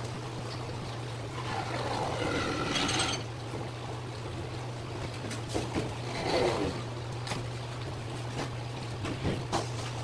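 Gloved hand handling a large yellowtail fillet on paper: rustling and scraping about a second in and again around six seconds, with a few soft knocks, over a steady low hum.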